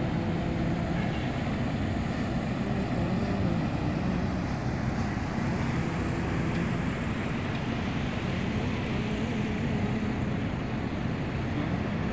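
Steady city background noise: a constant hum and rush of distant traffic, with faint wavering tones in the first few seconds.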